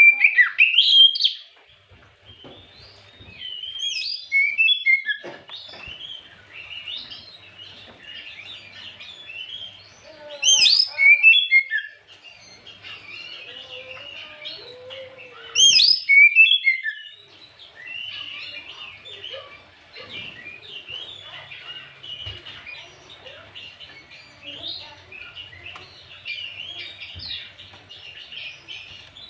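Oriental magpie-robin (kacer) singing: four loud bursts of rapid, varied whistled phrases, each about a second long, in the first seventeen seconds, with softer continuous twittering and chattering between and after them.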